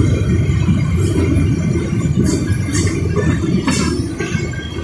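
Freight train of open-top hopper cars rolling past: a steady low rumble of wheels on the rails. A few brief high-pitched squeals sound between about two and four seconds in.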